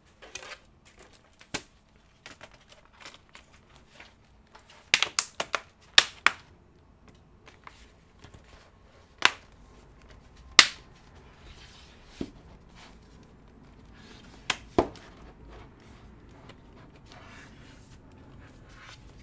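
Sharp plastic clicks and snaps of a ThinkPad E495 laptop's casing being handled and its bottom cover pressed back into place. There is a quick run of clicks about five seconds in, then single loud snaps spaced a few seconds apart.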